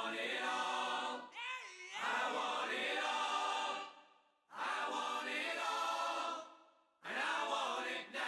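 Choir singing held chords in several long phrases, broken by short pauses.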